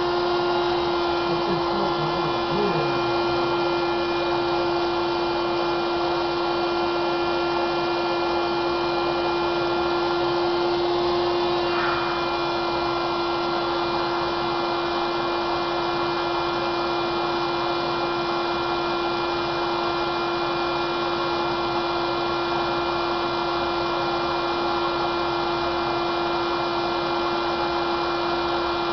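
Electric blower running steadily, pushing air through a hose into a 350-gram latex weather balloon being inflated; a steady motor hum with rushing air, changing slightly about twelve seconds in.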